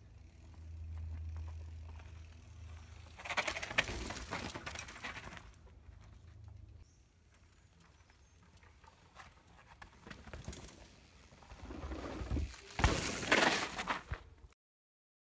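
Mountain bike riding over dirt, rock and roots: two rushes of tyre noise with small clatters, about three seconds in and again near the end, the second louder, and then the sound cuts off abruptly.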